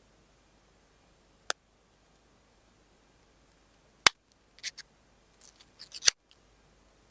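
Handling noises of smartphone packaging: a sharp click about a second and a half in, a loud click at about four seconds, short rustles and scrapes, and another loud click just after six seconds.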